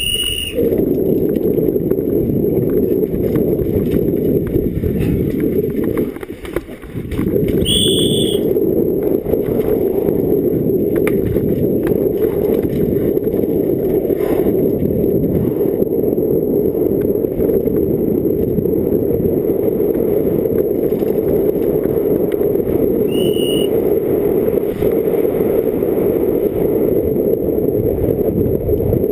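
Wind buffeting and trail rattle picked up by a GoPro on a downhill mountain bike descending a rough trail at speed. A dense, steady low rumble dips briefly about six seconds in, and three short high squeals come through.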